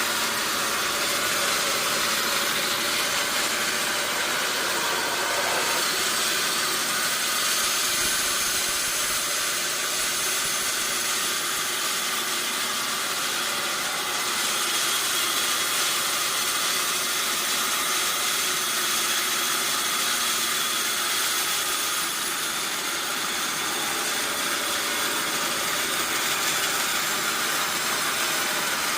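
Sawmill machinery running steadily: an even mechanical drone with a hiss that holds the same level throughout.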